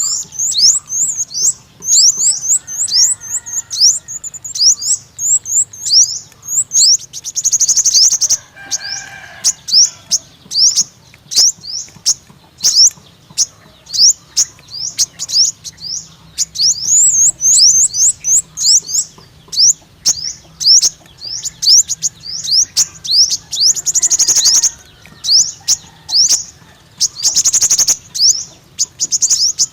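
Sunbird song: a rapid, unbroken run of high, thin chirps, several a second. It is broken by three short buzzy trills, one about a quarter of the way in and two near the end.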